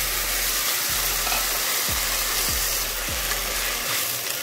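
Rice sizzling in a hot oiled pan just after water has been poured in, with a spoon stirring through it: a steady hiss.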